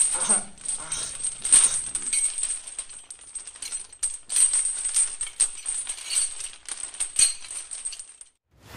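Metal chain rattling and clinking as it is wrapped around a wrist, a dense irregular jangle with a few louder clanks; it stops abruptly near the end.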